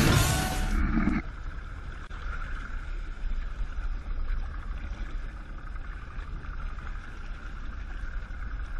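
Rock music cuts off about a second in, leaving a two-stroke Evinrude E-TEC 90 outboard motor running steadily under way, with a low rumble of wind and water.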